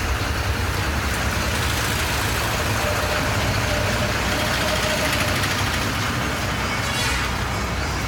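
Street traffic noise: motor vehicle engines running with a steady low rumble.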